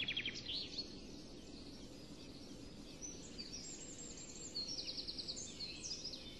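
Small birds chirping faintly in the background, with short high chirps and a quick trill about five seconds in.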